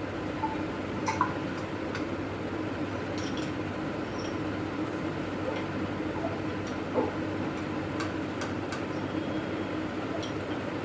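Steady background hum with a few faint ticks scattered through it.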